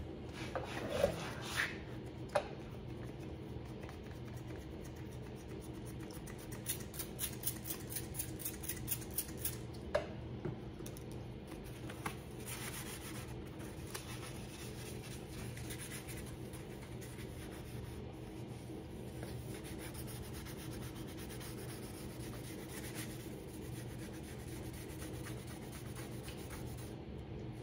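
Wet 2000-grit sandpaper rubbing over a plastic motorcycle tail-light lens: faint scratching in short strokes, busiest in a quick run a quarter of the way in, with a few light ticks at the start, over a steady low hum.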